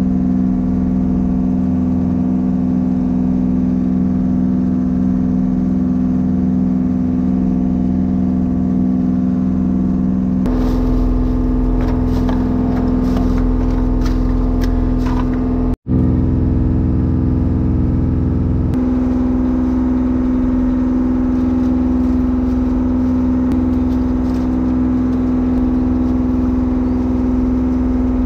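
Fishing boat's engine running steadily, a loud, even drone at a constant pitch. Light clicks and rustles come through it for a few seconds around the middle, and the sound drops out for an instant just after.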